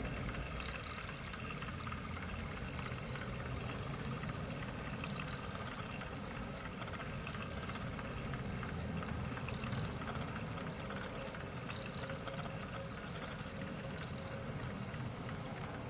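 Steady model railway locomotive sound: a continuous hiss like a steam locomotive standing with steam up, over a low engine rumble from a diesel shunter, with light irregular ticking.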